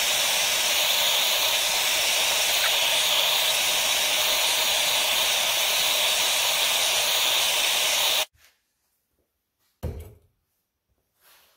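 Handheld gas torch burning with a steady hiss, heating the carburetor body to free a seized brass plug; the flame cuts off suddenly about eight seconds in. A short knock follows near the end.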